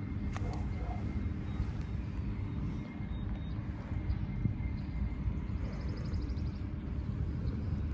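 Steady low rumble of outdoor street background noise, with no clear sound standing out above it.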